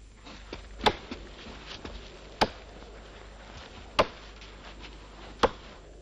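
Four evenly spaced axe blows chopping into wood, about one and a half seconds apart.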